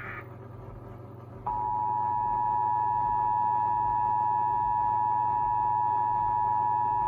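The end of an Emergency Alert System SAME header, a warbling data burst, stops just after the start. About a second and a half later the EAS two-tone attention signal begins: a loud, steady dual-tone alarm announcing the nationwide test alert, held over a low hum.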